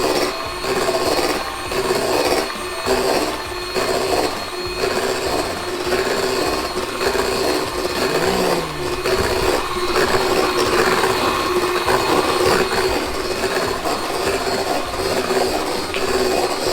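Electric mixer running steadily, beating cake batter in a bowl, with a swish that swells about once a second for the first few seconds as the beaters move around the bowl.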